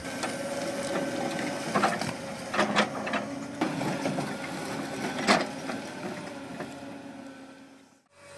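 Komatsu PC350 crawler excavator working an eccentric ripper against rock: a steady machine sound with a held whine, and sharp knocks every second or so as the vibrating ripper strikes stone. It fades away near the end.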